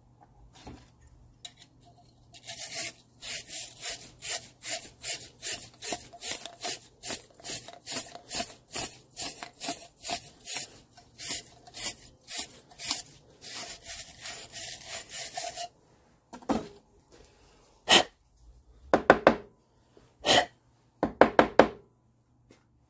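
A wire pipe-fitting brush scrubbing back and forth inside the rusty twist-throttle grip tube of a 1972 Honda CL70, a steady run of scraping strokes at about two to three a second that stops suddenly. The scrubbing is clearing the rust that made the throttle stick. Then a few separate knocks.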